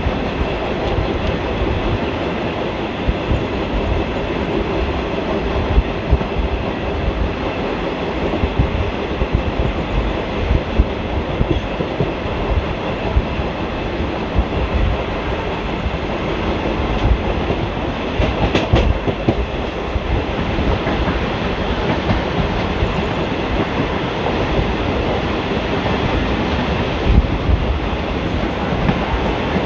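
ICF passenger coach running along the track, heard from inside: a steady wheel and rail rumble with irregular clickety-clack from the rail joints and a few louder clacks.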